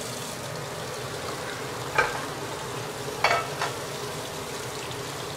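Fish-steaming soy sauce seasoning heating in a wok, a steady hiss. A metal ladle knocks against the wok about two seconds in, and twice more a little over a second later.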